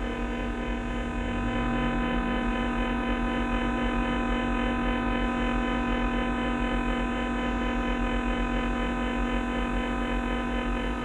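Electromagnetic fields made audible through induction headphones: a dense hum of many steady electrical tones layered together, with one tone sliding upward in pitch about a second in.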